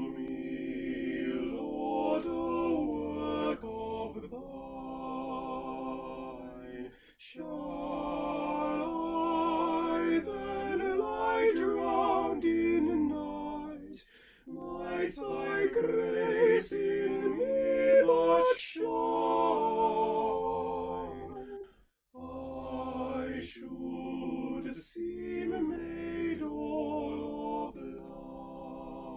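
Four-part choral singing of a slow church anthem, all four voice parts sung by one man and layered together. It comes in long sustained phrases with three short breaks, about 7, 14 and 22 seconds in.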